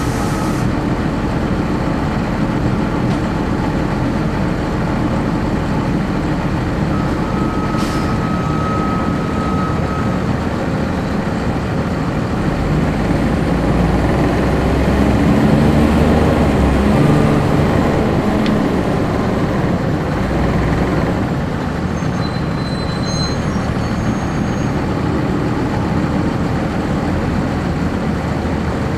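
1999 Nova Bus RTS's Cummins ISC inline-six diesel, heard from the rear seats inside the bus while it runs in service. The engine note rises and gets louder in the middle, as under acceleration, then eases back.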